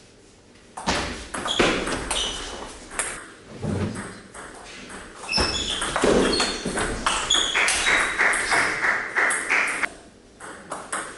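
Table tennis rally: the ball clicking in quick succession off the bats and the table, each hit with a short high ping. The hits pause briefly near the end, then start again.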